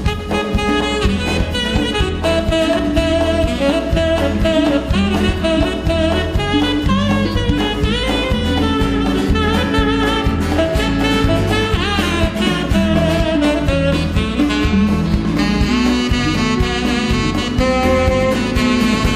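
A live band's instrumental break: a saxophone solo with bending notes over a steady bass and drum beat, with guitar.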